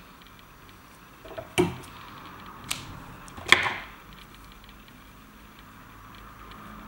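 Three sharp snips of scissors cutting through a bundle of synthetic hair fibre, about a second apart, the last the loudest.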